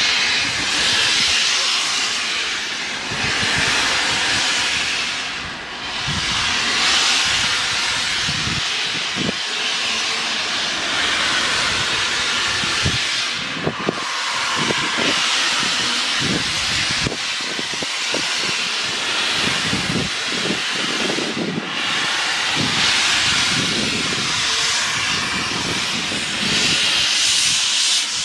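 Flying Scotsman, an LNER A3 three-cylinder steam locomotive, letting off steam: a loud hiss that swells and fades every few seconds, with scattered light knocks beneath it.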